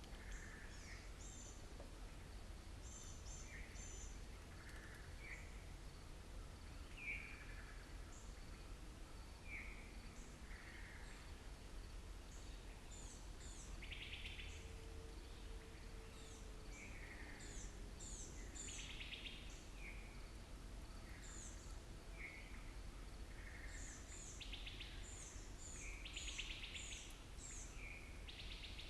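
Several kinds of wild birds calling and singing, faint: many short high chirps and a few buzzy trills, over a steady low background rumble.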